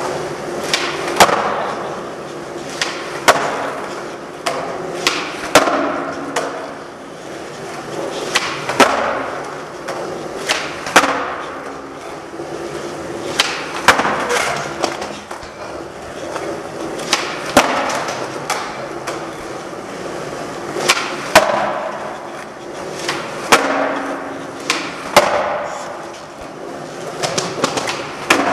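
Skateboard wheels rolling on a smooth, hard hallway floor, with sharp clacks every two to three seconds as the skater pops the tail and the board lands during flatground tricks.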